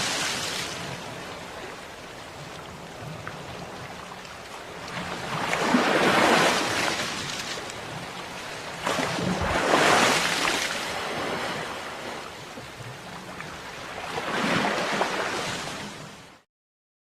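Ocean waves breaking and washing up on a shore, swelling and receding every four to five seconds. The sound cuts out abruptly near the end.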